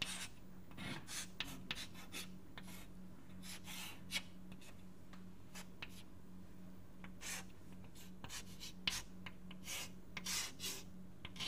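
Irregular scratching strokes of writing or drawing by hand on a writing surface, many short strokes in quick uneven succession, over a faint steady electrical hum.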